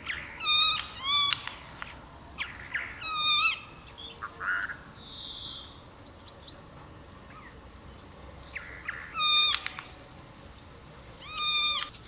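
Eurasian jay singing: a varied song of short pitched notes that dip at the end, given in groups of two or three with pauses, and fainter, different notes scattered between.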